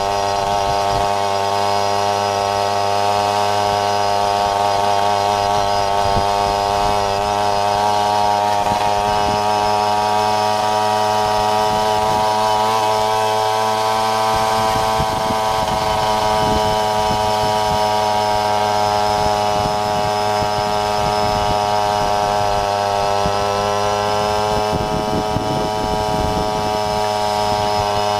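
Jawa Babetta moped's small two-stroke single-cylinder engine running at a steady, nearly constant speed, with only slight wavers in pitch.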